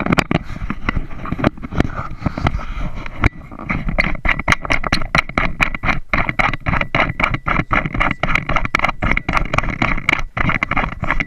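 Motorboat under way: engine running under a steady rush, with many rapid knocks and thumps.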